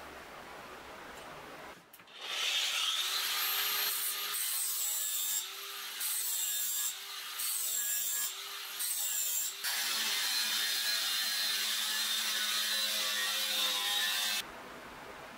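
Angle grinder spinning up about two seconds in and cutting through the steel core of a diamond saw blade with an abrasive cut-off disc: a loud grinding hiss over a high whine, broken by four short lulls as the disc is eased off and back on, then one continuous cut that stops suddenly near the end.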